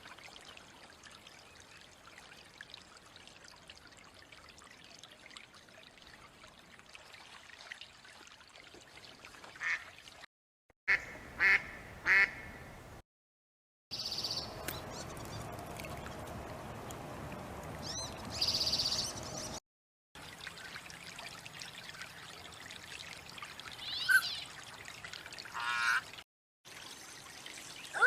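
Ducks quacking now and then over a faint steady hiss. The first ten seconds are mostly the hiss; after that, short calls come singly or in quick pairs, in several short stretches broken by moments of silence.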